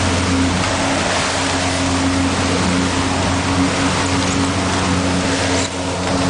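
A small boat's engine drones steadily under way, under a loud rush of water and wind as the hull runs through rough seas. The sound dips briefly near the end.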